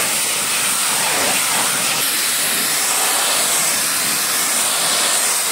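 High-pressure washer jet spraying water against a car's doors and windows, a steady hiss.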